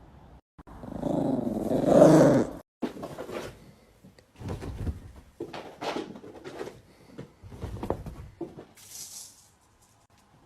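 A dog making vocal sounds. A loud, drawn-out sound starts about a second in and cuts off sharply, then comes a string of shorter noises with gaps between them.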